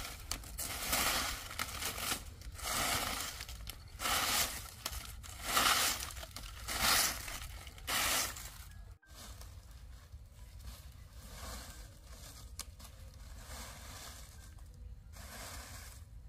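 A handmade broom of dried leaves scraping and rustling over dry dirt in repeated dragging strokes, about one a second. After a break about nine seconds in, only faint scratching remains.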